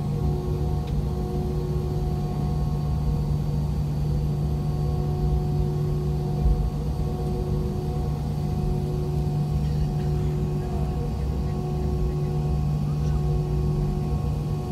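IAE V2525-D5 turbofan of an MD-90, heard from inside the rear cabin beside the tail-mounted engine, running steadily at low taxi power. It makes a constant deep hum with several steady tones over a low rumble.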